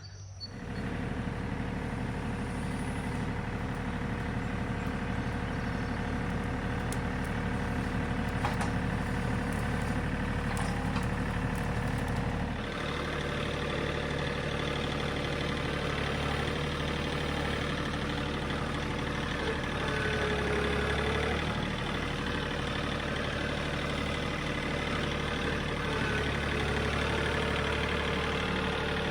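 John Deere 3025E compact tractor's three-cylinder diesel engine running steadily, with a steady whine above it. About thirteen seconds in the engine note shifts and it runs on at a slightly different pitch.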